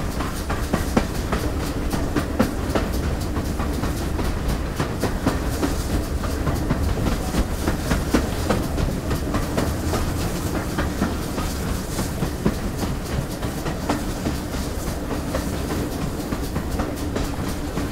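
GWR Collett Goods 0-6-0 steam locomotive running along the line, a steady rumble with its wheels clicking over the rail joints.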